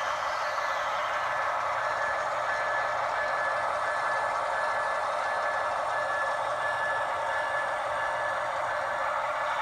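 Sound-equipped model BNSF diesel locomotives running: a steady, thin diesel engine drone with no bass and a faint high tone held throughout.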